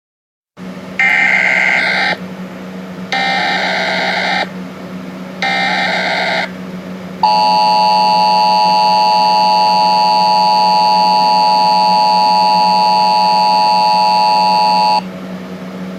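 Emergency Alert System opening: three short bursts of warbling SAME header data tones, then the steady two-tone EAS attention signal held for about eight seconds. It is re-recorded from a phone's speaker, with a constant low hum underneath.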